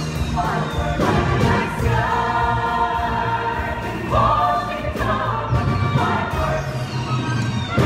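Stage musical cast singing together as a chorus over band accompaniment with a steady bass and beat.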